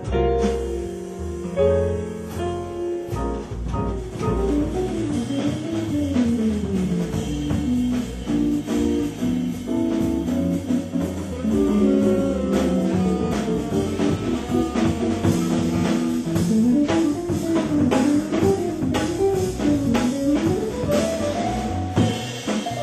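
Live small-group jazz: upright bass and drum kit with a guitar playing a flowing melodic line that climbs and falls.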